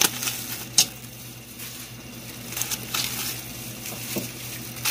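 Aluminium-foil parcels crinkling and knocking as they are set down one by one on a wire steaming rack inside a metal pot, with a sharp click about a second in. A faint low hum runs underneath.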